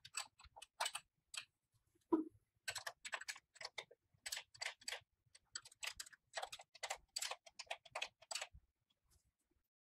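Faint runs of quick, light metallic clicks as a small wrench turns and taps the nuts holding a sewing-machine servo motor to its mounting bracket, with one duller knock about two seconds in.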